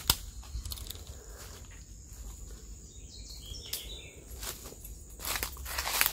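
Footsteps through dry leaf litter and grass, irregular rustles and short clicks that grow louder near the end.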